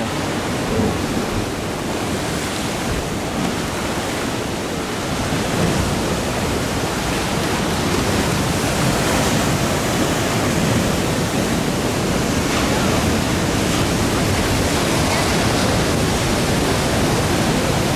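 Ocean surf washing against a rocky shore, a loud steady rush of water, mixed with wind on the microphone.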